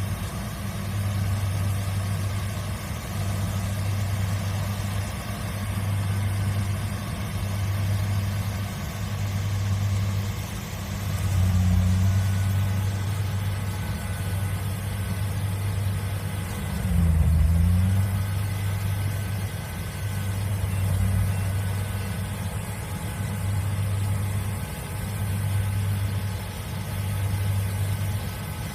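Kubota DC70 Plus combine harvester's diesel engine running steadily, its low hum swelling and fading about every two seconds. About seventeen seconds in, the pitch briefly rises and then drops back.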